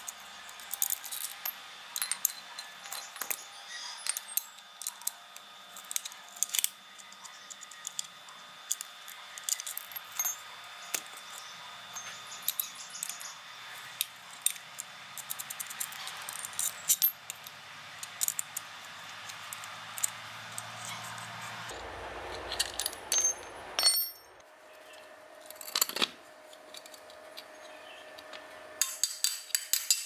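Wrench and screwdriver clinking and scraping on the metal housing of a washing-machine motor as its housing bolts are worked loose: many small sharp taps and clicks, a scraping stretch a little past two-thirds of the way in, and a quick run of clinks near the end.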